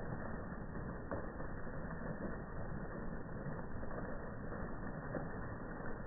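Fountain water splashing into its basin: a steady, dull rush with the treble cut away.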